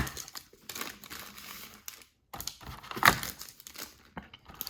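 Wrapped trading-card packs being pulled out of a cardboard advent calendar box: wrappers crinkling and rustling against the cardboard, with a few sharp clicks and snaps, the loudest right at the start and about three seconds in.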